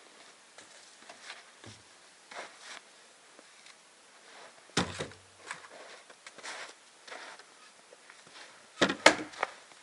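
A heavy cloth cover being pulled over a hut doorway and secured, with faint rustling, a dull thump about five seconds in and a quick cluster of sharp knocks near the end.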